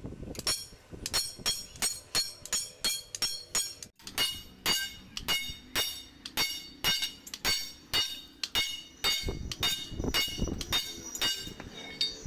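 Sledgehammer blows on a steel leaf from a Tata truck's leaf spring, laid on an anvil block and hammered to restore its arch. An even run of ringing metallic strikes, about two and a half a second, with a brief break about four seconds in.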